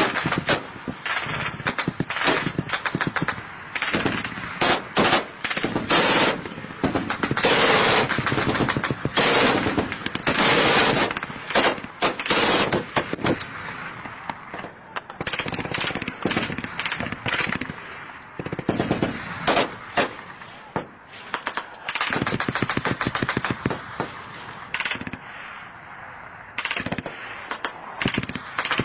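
Machine-gun fire in repeated bursts of rapid shots with short pauses between them, the loudest run of bursts in the first half.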